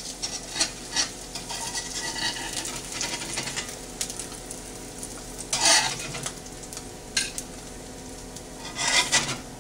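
Eggs frying in butter in a Lodge 10-inch cast iron skillet, sizzling steadily, while a metal spatula scrapes and clicks against the pan as the eggs are lifted out. Two louder scrapes come a little past halfway and near the end.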